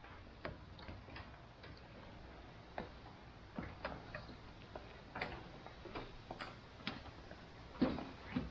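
Footsteps while walking, heard as light, irregular taps, often about half a second apart.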